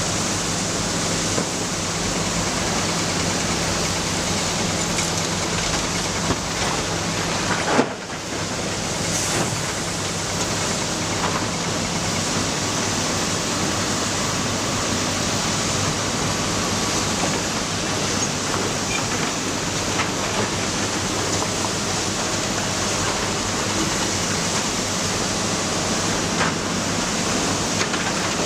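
Matador ME315 excavator's diesel engine running steadily under a loud even hiss, with a few sharp knocks, the loudest about eight seconds in.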